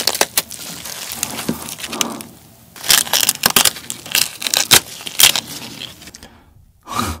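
Shell of a large cooked black tiger shrimp cracking and crunching as it is twisted and pulled apart by hand, the head tearing away from the body. The sound comes as runs of sharp cracks in two main bursts, with one last crack near the end.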